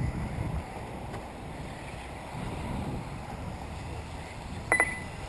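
Wind buffeting the microphone, a steady low rumble that swells in gusts. About four and a half seconds in there is a brief, sharp tone.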